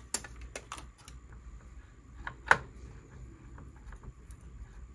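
Scattered small clicks and taps of a screwdriver working a tiny screw on a motherboard's metal M.2 cover, with one sharper click about two and a half seconds in.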